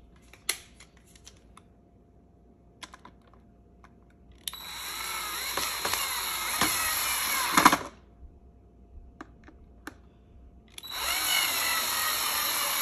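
Hyper Tough cordless drill driving screws into a plastic filter housing, in two runs of a few seconds each: one about four and a half seconds in and another near the end. Each run ends in a rapid clatter as the screw seats. It sounds like the screws stripping, though they did not strip.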